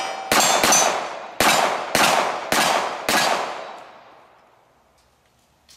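About six pistol shots fired in quick succession at steel targets, each with a long echoing tail and the clang of a hit ringing on the steel. The shooting stops a little after three seconds in and the echo fades away.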